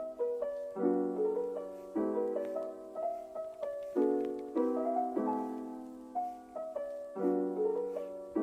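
Background music: soft piano chords struck about once a second, each fading before the next.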